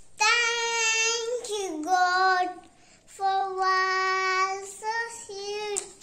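A young girl singing a slow tune alone, holding long high notes with a short pause about halfway through.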